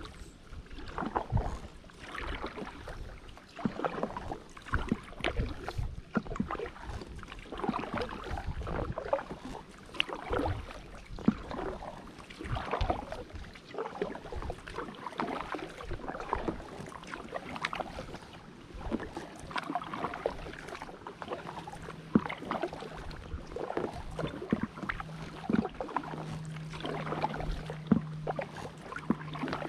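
Kayak paddle blades dipping and pulling through water in steady strokes, about one every second or so, with splashing and drips from an inflatable drop-stitch kayak. A faint low steady hum joins about two-thirds of the way through.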